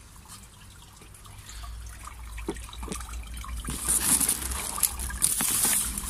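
Water trickling and splashing, quiet at first and growing louder over the last few seconds, with scattered clicks.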